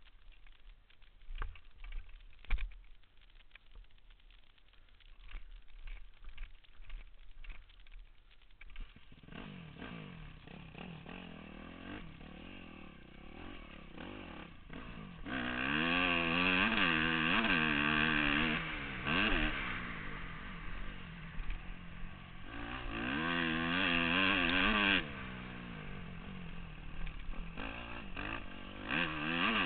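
A motorcycle engine comes in about a third of the way through and runs with its pitch rising and falling as it is revved, getting loud twice under harder throttle. Before it, only faint knocks and handling noise.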